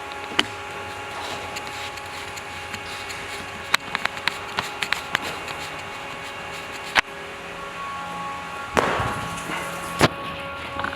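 A machine hum that runs steadily, with sharp knocks and clicks over it: one just after the start, a quick cluster about four seconds in, and loud single knocks near seven and ten seconds.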